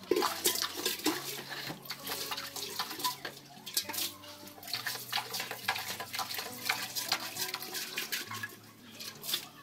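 Water sloshing inside a large copper pot and splashing out onto a tiled floor as the pot is rinsed and tipped, in irregular splashes throughout.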